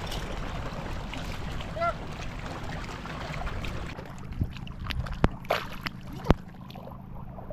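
Wind rumbling on the microphone and water noise at sea, with a few sharp knocks in the second half and a short call from a voice about two seconds in.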